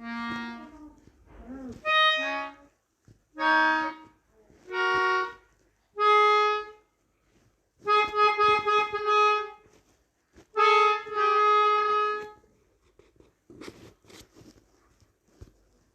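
Melodica played in a string of separate held notes, each lasting about half a second to two seconds with short breaks between them. The playing stops about two seconds before the end, leaving only faint small sounds.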